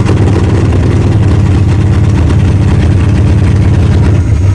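Carbureted car engine running loud and steady just after a cold start, held going on the throttle with a sticking choke; it will not idle on its own.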